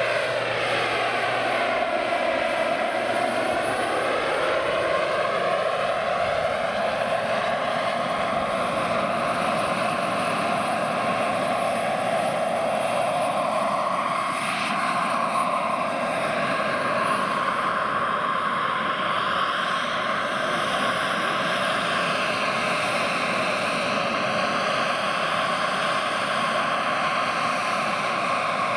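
Scale model MH-53 helicopter in flight, its JetCat PHT 3 turbine giving a steady high whine over the rotor noise. The tone sweeps down and back up in the first few seconds as the helicopter passes.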